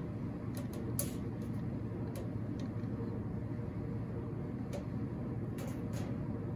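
Steady low room hum with a few light clicks and rustles from something small being handled; the loudest click comes about a second in.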